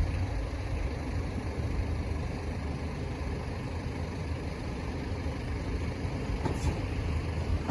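Northern Ireland Railways 3000 class diesel multiple unit running at the station, a steady low rumble.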